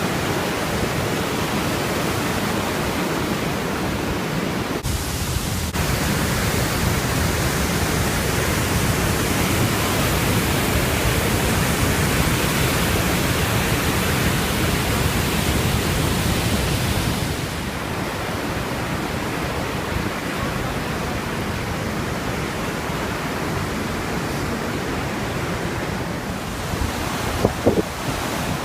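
Iguazu Falls' water pouring over the ledge: a loud, steady rushing noise with no pause. It eases a little about two-thirds of the way in, and a few short sharp sounds break in near the end.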